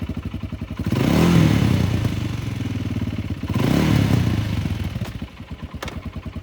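2017 Kawasaki Brute Force 300 ATV's single-cylinder four-stroke engine idling and being revved twice, about a second in and again after about three and a half seconds. It settles back to a quieter idle near the end.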